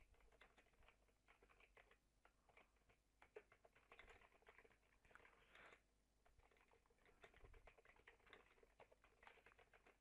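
Faint keystrokes on a computer keyboard: a line of text being typed in quick, uneven runs of clicks with short pauses.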